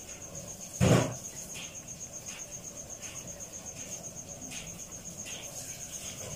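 A cricket chirping steadily, a rapid even train of high-pitched pulses, with one short, louder sound about a second in.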